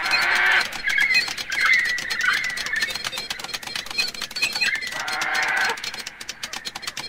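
Experimental electronic noise: dense crackling clicks with short chirping, warbling tones over them, and brief bursts of hiss at the start and again about five seconds in.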